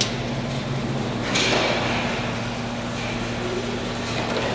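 A short scraping rustle about a second and a half in as a magneto is eased round on its mounting on a Rolls-Royce Merlin 25 aero engine, with a few small clicks. A steady low hum runs underneath.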